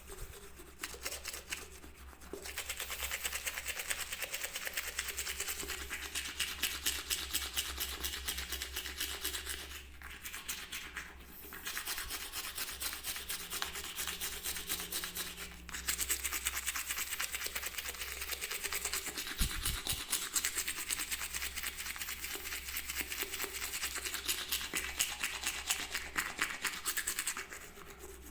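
Toothbrush bristles scrubbing in rapid back-and-forth strokes, stopping briefly a few times.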